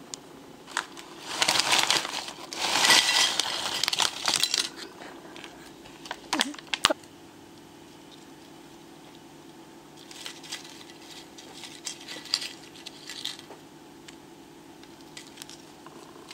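A potato chip bag crinkling and rustling for about three seconds, then a few sharp clicks of chips dropping onto a plate, and later lighter rustles and ticks of chips being handled.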